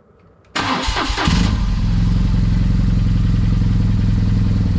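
BMW R1200GS's flat-twin boxer engine started on the electric starter: about half a second of cranking, then it catches and settles into a steady idle.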